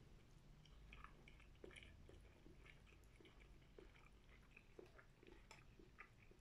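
A person chewing food faintly, with irregular small clicks of the mouth, several a second.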